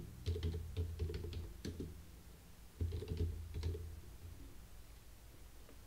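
Typing on a computer keyboard: two quick runs of keystrokes, the second starting about three seconds in. The keys stop about four seconds in.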